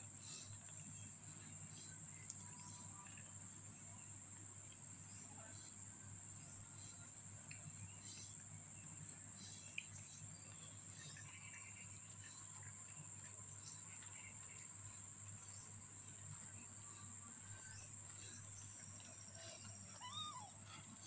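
Faint room tone: a steady high whine over a low hum, with a few soft ticks. Near the end a two-week-old kitten gives one brief high mew.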